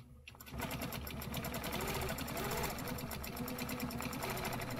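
Quilting machine starting up about half a second in and then running steadily, its needle stitching rapidly as the quilt is guided along an acrylic ruler against the ruler foot.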